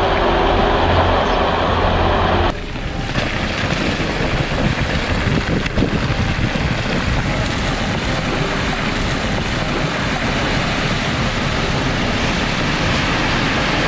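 Rockfall: a continuous rumble of rock and debris crashing down a mountain slope. About two and a half seconds in the sound changes abruptly to a rougher rumble with scattered knocks of falling rocks.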